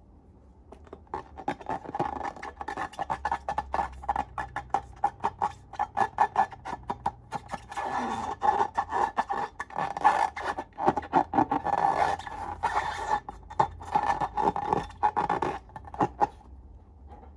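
Slime being squeezed and worked by hand: a dense run of rapid clicks and crackles that starts about a second in and stops shortly before the end.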